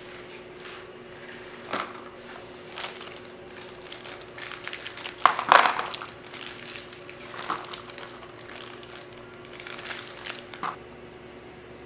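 Crinkling and rustling with light clicks from food handling: gloved hands working at a paper-lined baking tray while placing chocolate balls on baked cookies. The handling noises come in irregular bursts and are loudest about halfway through, over a steady low hum.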